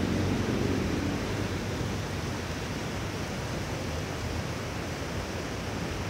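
Steady, even rushing noise with no distinct events, a little louder in the first second.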